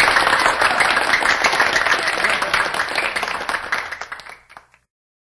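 Live audience applauding after the final punchline of a comic crosstalk routine, dense clapping that fades about four seconds in and cuts off to silence.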